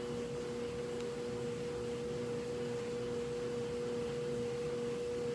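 Steady background hum of a household cleaning appliance running, with one constant mid-pitched tone and fainter lower tones beneath it.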